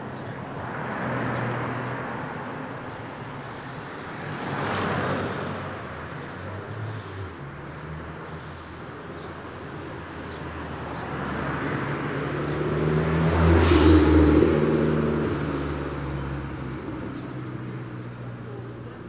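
Road traffic: cars passing by one after another, each swelling and fading. The loudest comes about two-thirds of the way through, with its engine hum clearly heard.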